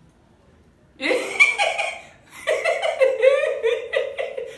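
A man laughing in repeated bursts, starting about a second in.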